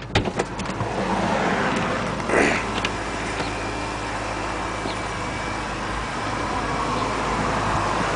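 A car door latch clicks open and a door shuts about two and a half seconds in. Under it runs the steady idle of a VF Engineering supercharged BMW S54 straight-six, which becomes louder once the door is open.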